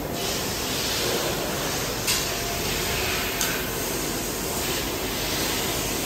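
Laser pipe cutting machine cutting holes in a large steel pipe: the cutting head's gas jet hisses in spells of a second or so, each starting sharply, over a steady hum of machinery and fans.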